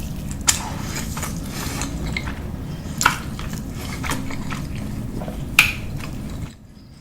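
Close-miked eating: a person biting and chewing, with three sharp crisp clicks spaced through it over a steady low background rumble. The sound drops away abruptly near the end.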